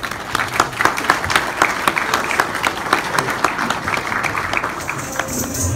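A roomful of people applauding, many hands clapping. Near the end the clapping thins out as music with a tambourine begins.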